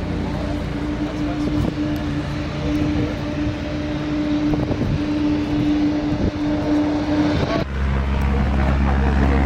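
Mini motorcycle's small engine running at a steady pitch as it cruises. About two seconds before the end it gives way abruptly to a light single-engine propeller plane on landing approach, its engine a low, steady drone.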